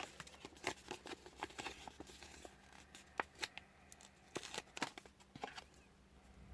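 Faint, irregular crackles and light clicks of a paper sticker sheet being handled and a sticker peeled from its backing, among small plastic toy parts.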